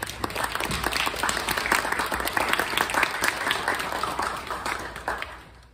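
Audience applauding, a dense run of hand claps that starts at once and dies away near the end.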